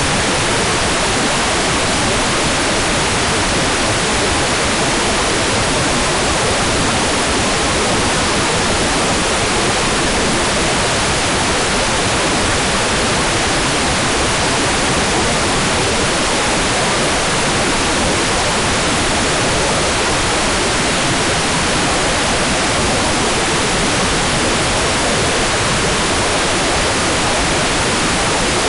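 Hair dryer running steadily: a constant, even rush of blown air with no change in pitch or level.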